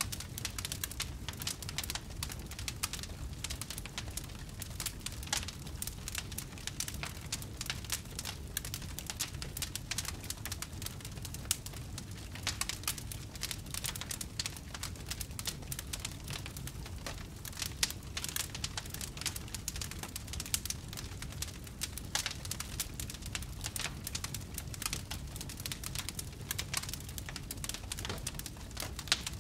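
Wood fire crackling in a fireplace: a dense, irregular stream of small crackles and pops over a low steady rumble of the flames.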